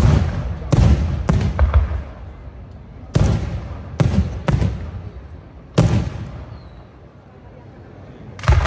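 Aerial firework shells bursting in a display: a rapid series of about eight sharp booms, each trailing off in a low rolling echo. There is a short lull before another volley breaks out near the end.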